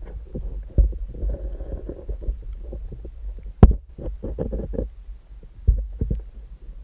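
Muffled underwater knocks and a steady deep rumble on an underwater action camera's microphone as it is moved about in the water, with three louder knocks about a second in, midway and near the end.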